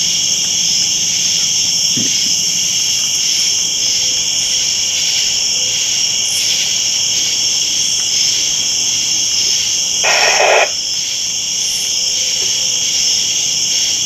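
A steady chorus of crickets chirping in a regular pulse, about two chirps a second. About ten seconds in comes a short burst of walkie-talkie static, about half a second long.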